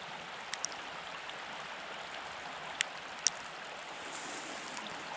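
Steady outdoor rushing hiss, with four short, sharp clicks: two close together about half a second in and two more around three seconds in.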